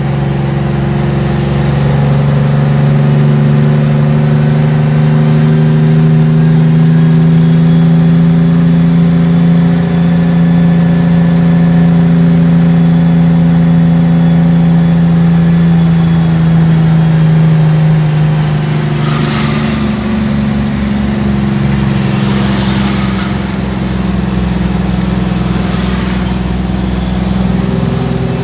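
Cummins ISX15 diesel engine of a Kenworth T800 tractor-trailer running steadily under way. Its note climbs slowly, drops about two-thirds of the way through, then holds again, with a few short hisses near the end.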